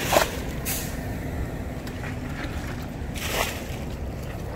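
Wet squelching and splashing of feet and hands in soft pond mud as a boy wades and gropes for fish, with a sharp splash just after the start, a smaller one soon after and another about three seconds in, over a steady low rumble.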